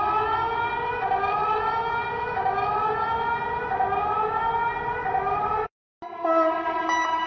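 Civil-defence air-raid sirens wailing after a countdown, several overlapping slow rising wails. They cut off abruptly about five and a half seconds in, and after a brief silence a steady, level siren-like tone takes over.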